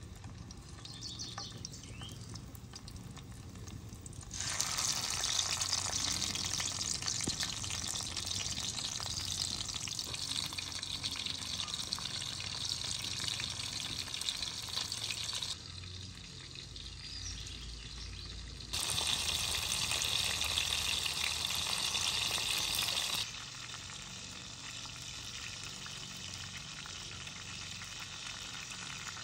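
Beef-stuffed eggplant rolls frying in a pan of hot oil, a steady sizzle. It is louder in two long stretches, from about four to fifteen seconds in and again from about nineteen to twenty-three seconds, and softer in between and at the end.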